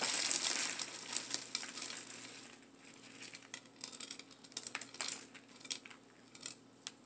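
Hands working a potted plant loose from its planter: rustling and scraping of leaves and potting soil, loudest for about the first two seconds, then scattered light clicks and taps against the pot.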